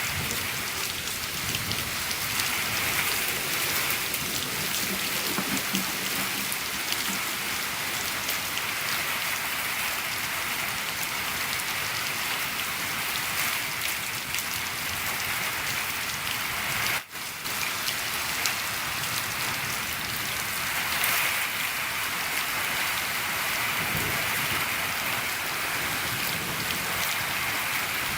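Steady rain falling on a shed, with many individual drops ticking through the hiss. The sound cuts out for a split second about seventeen seconds in.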